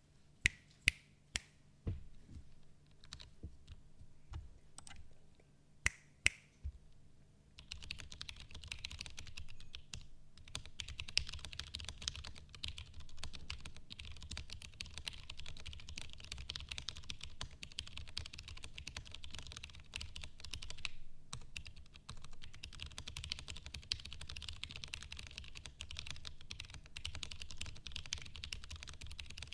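Mechanical keyboard with franken tactile switches being typed on. A few separate sharp clicks come first, then fast continuous typing begins about a quarter of the way in. The typing breaks briefly about two-thirds through.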